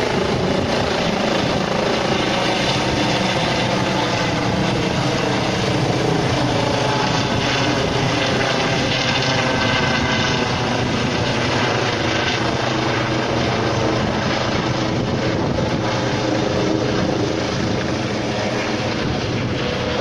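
Eurocopter EC135 T2 twin-turbine helicopter running loud and steady, its turbine and rotor sound holding throughout and easing slightly in the last few seconds.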